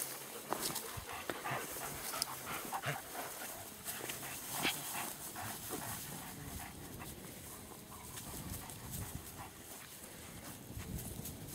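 Dog panting, with scattered short clicks and rustles, most of them in the first half.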